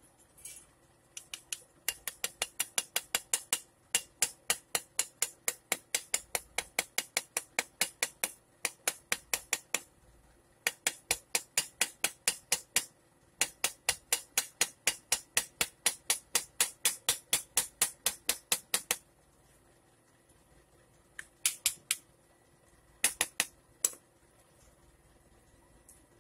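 Small hammer tapping metal on the rear end of a car alternator as it is reassembled: rapid, even taps about four a second in long runs with short pauses, then two brief groups of taps near the end.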